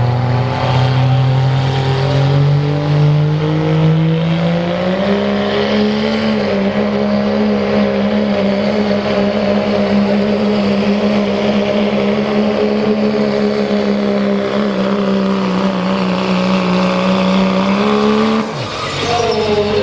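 Dodge Ram pickup's engine at full throttle pulling a sled. The revs climb over the first five seconds and hold steady at high revs under the load, then drop sharply near the end as the throttle is let off and the pull ends.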